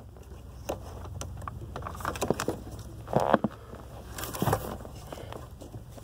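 Scattered small clicks and scrapes of fingers working at the plastic wiring connector on a car's brake light switch under the dashboard, trying to unplug it, over a steady low hum. Two louder scrapes come about three and four and a half seconds in.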